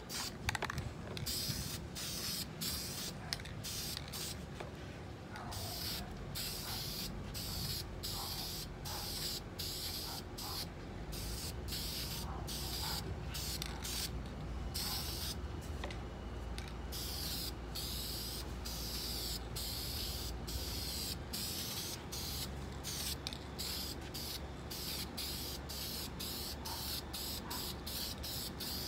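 Aerosol spray-paint can hissing in many short bursts with brief breaks between them, spraying a colour coat onto a guitar body.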